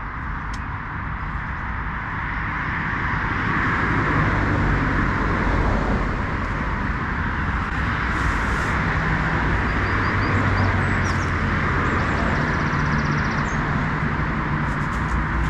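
Steady rush of road traffic from a nearby main road, swelling slightly a few seconds in, with faint clicks and rustles as a nylon dome tent and its poles are collapsed.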